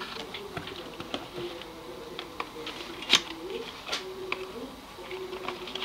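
Clicks and rustles of hands handling a cardboard box and its packed cables and paper leaflet, with one sharp click about three seconds in. A faint steady hum that shifts slightly in pitch runs underneath.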